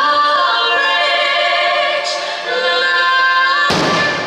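Loud music from the show's loudspeakers, a singing voice with vibrato held over accompaniment. Near the end a firework shell bursts with a single bang over the music.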